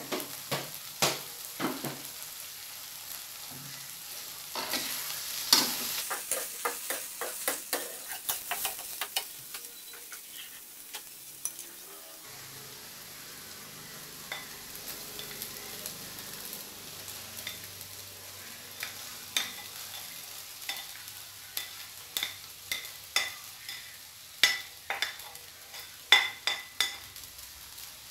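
Metal spoon stirring and scraping in a metal wok, clinking against the pan in quick runs, over faint sizzling of frying spice paste and rice. The clinks are dense at the start, thin out in the middle, and pick up again in the second half.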